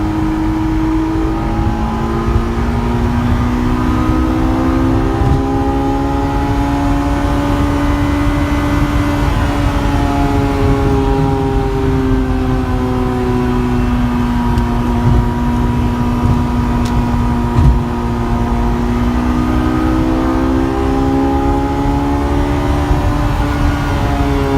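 Honda S2000's inline-four engine pulling in gear on the road, heard from inside the cabin, its pitch rising and easing gradually with road rumble beneath. A single short knock comes about three-quarters of the way in.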